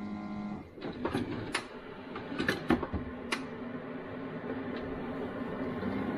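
Single-serve pod coffee maker: a steady hum cuts off about a second in, then a run of sharp plastic clicks and clunks as the lid is shut and the brew button pressed, and a lower steady hum starts up again as the machine begins to brew.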